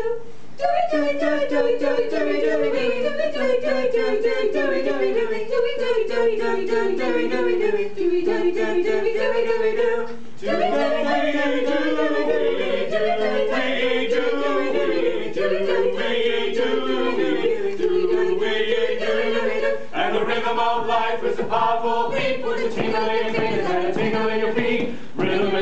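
Mixed a cappella vocal group, men's and women's voices, singing in close harmony with moving sustained notes. Sharp rhythmic beats join the singing over the last few seconds.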